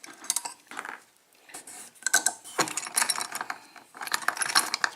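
Metallic clicking and rattling of a picked-open Schlage five-pin lock and its steel picking tools being handled, a few clicks at first, then dense runs of rapid clicks through the second half.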